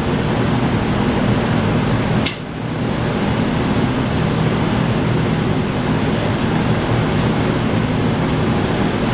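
Steady mechanical hum and rush of a dye tank loading and agitating machine's electric gearmotors running as the basket goes down into the dye. A sharp click about two seconds in, and the noise dips briefly right after it.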